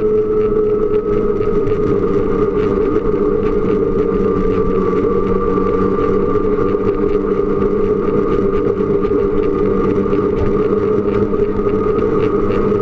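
Snowmobile engine running steadily while under way on the trail, its pitch easing down slightly through the middle and rising again near the end.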